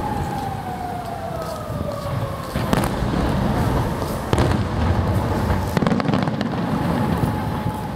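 Aerial fireworks shells bursting: sharp bangs about a third of the way in and just past halfway, then a quick cluster of cracks, over a steady low rumble. A faint held tone slowly falls in pitch behind them.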